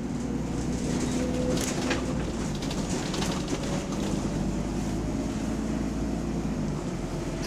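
A bus's diesel engine running steadily, with the chuffing of a large exhaust leak, and a few brief rattles about one and a half to three seconds in.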